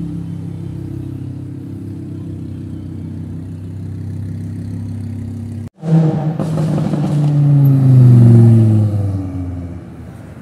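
Lamborghini Huracán V10 with a modified exhaust running steadily at idle. It then accelerates past with the engine pitch climbing through the gears, loudest about eight seconds in, before fading as the car pulls away.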